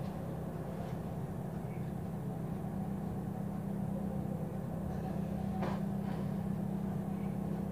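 Steady low background hum, with a faint brief sound about six seconds in.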